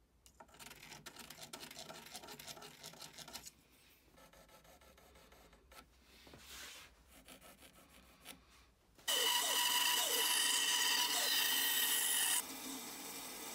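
Hand-tool scraping strokes on a piece of ash wood, quick and rhythmic at first and then quieter. About nine seconds in, a much louder power tool starts running steadily. It cuts off abruptly about three seconds later, leaving a quieter steady noise.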